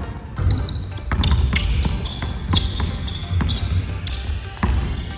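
Basketball dribbled on a hardwood gym floor in irregular bounces, with short sneaker squeaks as the players move.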